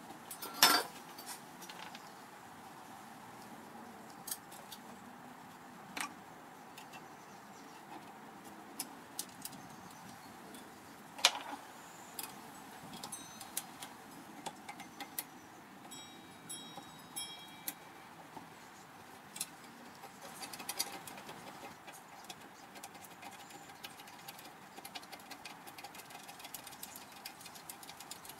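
Scattered light clicks and knocks of metal parts being handled and fitted together, the two sharpest about a second in and about eleven seconds in.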